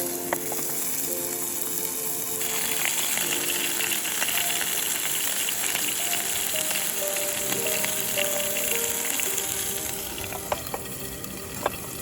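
Food sizzling and crackling in a frying pan, over background music with a slow melody. The sizzle comes in a couple of seconds in and dies down near the end, where two light clicks sound.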